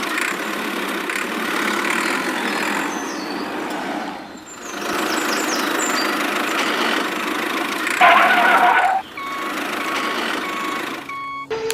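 A vehicle engine running steadily. About eight seconds in comes a loud horn-like blast, followed by a row of short, evenly spaced beeps.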